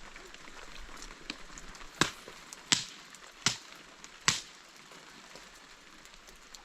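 Four sharp knocks in a row, evenly spaced about three-quarters of a second apart, over a steady hiss, with a few fainter clicks around them.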